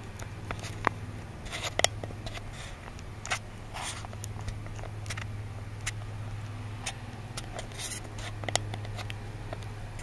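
A steady low hum under scattered light clicks and taps from a handheld camera being moved and handled.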